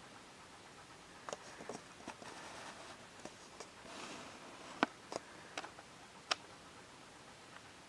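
Quiet room tone with a scattering of small, sharp clicks and ticks, about nine over several seconds, and a soft rush of noise near the middle.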